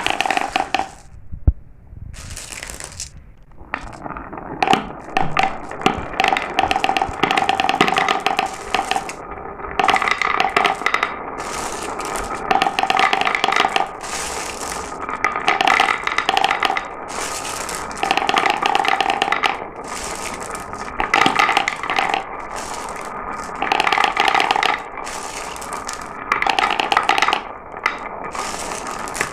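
Marbles rolling and clattering down a marble run track: a dense run of clicks and rattles with a ringing tone, swelling louder in repeated stretches of a second or two as marbles run through and drop between sections.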